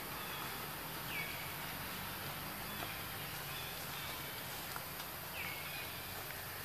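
Tropical forest ambience: a steady hiss with a low hum underneath. A few short high calls sound through it, two of them falling chirps about four seconds apart.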